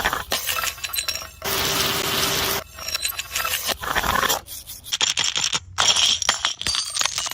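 Glass clinking and scraping: a run of sharp clinks and rattling shards, with one longer stretch of scraping about a second and a half in.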